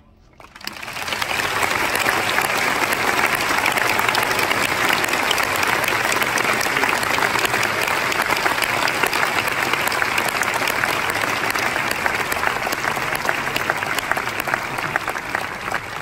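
Large concert audience applauding, building up over the first second or two into steady, dense clapping.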